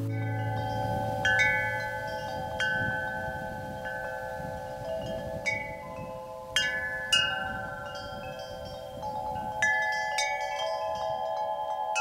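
Hanging wind chime of long metal tubes, struck by the breeze at uneven gaps of about one to two seconds. Each strike gives clear, bell-like tones that ring on and overlap with the next.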